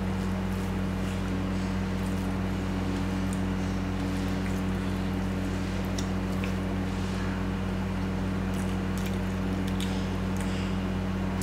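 Close-up eating sounds of someone eating mutton curry with rice: scattered wet smacks and mouth clicks over a steady low hum.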